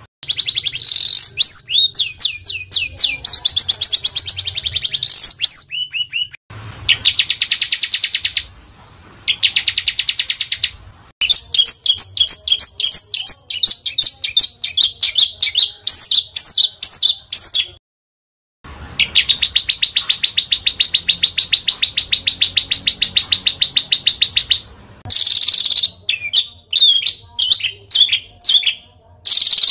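Small songbirds singing fast, high-pitched trills and rapidly repeated chirps, spliced into segments that start and stop abruptly, with a silent gap of about a second midway. This is recorded 'masteran' song of the kind used to teach caged songbirds new phrases.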